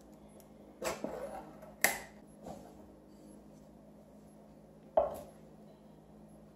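A few sharp knocks and clicks as a can of condensed milk is opened and handled with a plastic measuring cup over a wooden cutting board: two about a second apart near the start, and a louder single knock about five seconds in.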